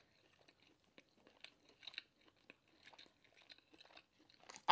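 A person chewing food with the mouth closed, close to the microphone: faint, irregular wet clicks and small crunches.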